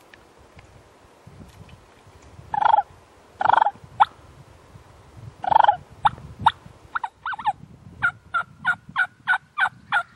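Wild turkey gobbling close by: three loud, rattling gobbles, followed by short, sharp calls and then a run of evenly spaced yelps, about three a second, near the end.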